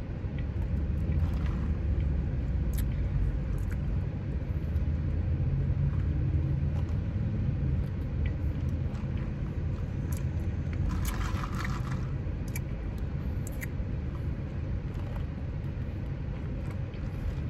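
Steady low rumble of a car heard from inside the cabin, with a brief rustling noise about two-thirds of the way through.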